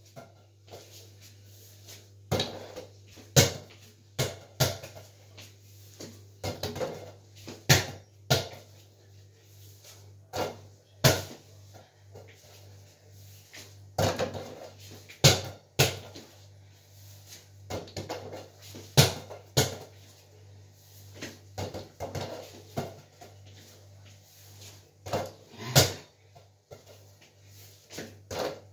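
Small rubber basketball repeatedly shot at a wall-mounted mini hoop: irregular sharp knocks and bounces as it hits the backboard and rim and drops back, about one every second or so, some in quick pairs.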